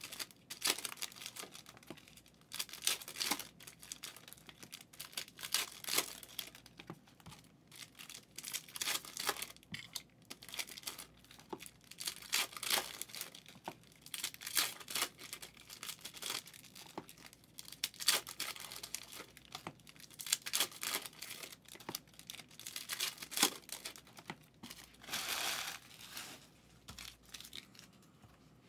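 Trading card packs (2023 Panini Contenders football hobby packs) being torn open, their wrappers crinkling, and cards slid and shuffled through the hands. It is a steady run of short scratchy rustles, with one longer rustle near the end.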